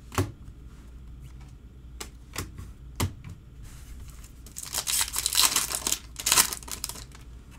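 A few sharp taps as cards are handled, then a Topps Chrome Update Sapphire foil pack torn open and its wrapper crinkled. The tearing starts about four and a half seconds in and lasts about two seconds; it is the loudest sound.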